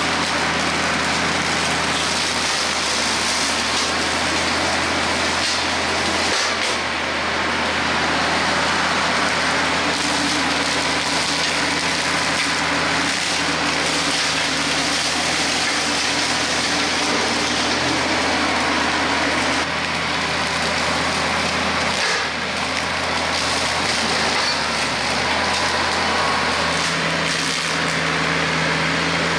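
TYM T474 compact tractor's diesel engine running steadily under load, driving a PTO-mounted hydraulic power pack that spins a front-mounted Hardee Brush Tiger rotary cutter as it cuts brush. The drone is steady, with two brief dips in level, about a quarter and three quarters of the way through.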